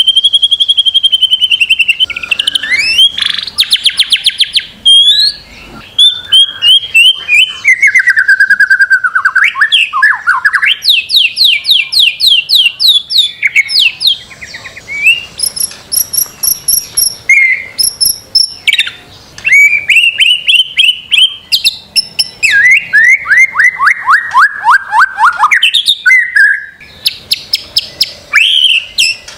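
White-rumped shama (murai batu) singing a long, varied song: clear whistles, fast rattling trills of repeated notes and downward-sliding runs, with a few short pauses between phrases.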